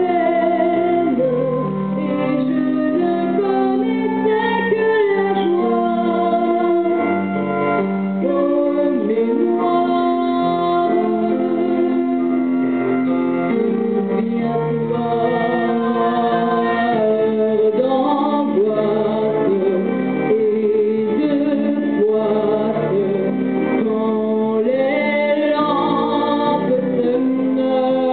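A woman singing a slow solo song from a stage musical, with long held notes over instrumental accompaniment.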